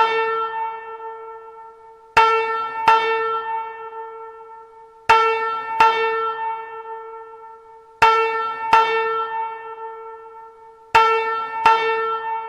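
FireCom 8500 fire alarm system sounding a bell-like chime: sharp struck tones come in pairs about 0.7 s apart, the pairs repeating about every three seconds, and each tone rings on and fades out.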